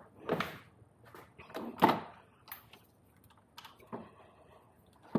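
Scattered knocks and clicks of hands handling parts while removing an electric dirt bike's motor, the loudest about two seconds in.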